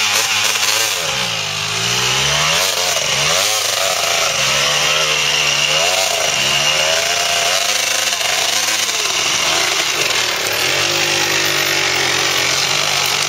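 Dirt bike engine revving up and down again and again as the bike is stuck on a steep climb, unable to get going while riders push it. It settles into a steadier, even drone near the end.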